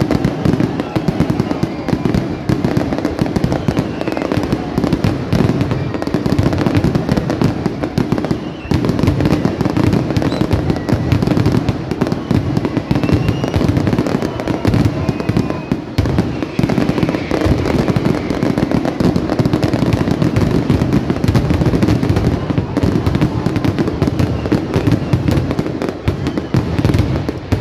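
Closing fireworks barrage: a rapid, unbroken run of shell bursts and crackling, easing slightly near the end.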